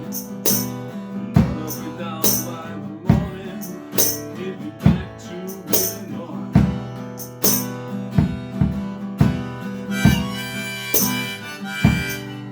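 Instrumental break of a bluesy song: harmonica played over guitar with a steady drum beat, the harmonica's held notes standing out more near the end.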